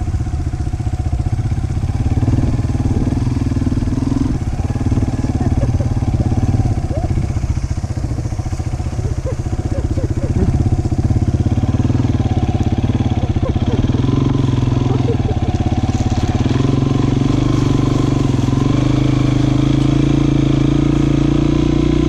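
Dirt bike engine running steadily under load at low speed, carrying two riders through soft sand; its pitch rises a little near the end.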